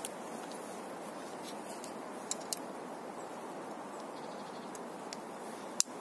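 Leatherman Wave multi-tool being handled, a few light clicks and one sharp click near the end as a tool is flipped out, over a steady background hiss.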